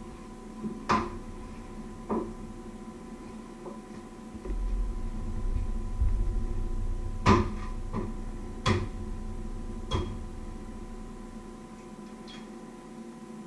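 Kitchen handling noises: a handful of sharp knocks and clatters of cookware and utensils being moved, with a low rumble in the middle stretch, over a steady electrical hum.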